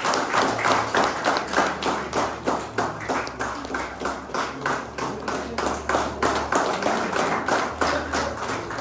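People clapping in a steady, even rhythm, about five claps a second.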